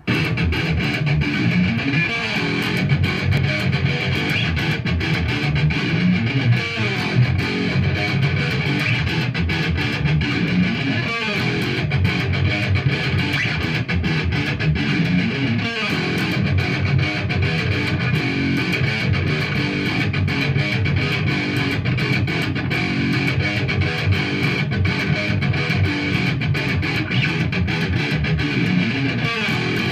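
Electric guitar played alone: a steady stream of fast-picked notes with no pause.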